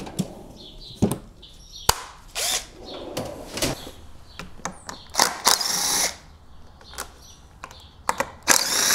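Impact driver spinning out the 8 mm screws that hold a GY6 scooter engine's cooling fan, in several short bursts, the longest about a second long just past the middle, with a few sharp clicks between.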